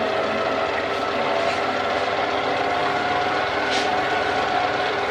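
Electric mixer running steadily in banana bread batter, a constant motor whine.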